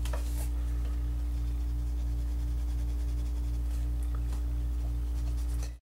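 Steady low hum with a faint throb repeating about three times a second, and a few faint ticks of a mechanical pencil on paper. The sound cuts off abruptly near the end.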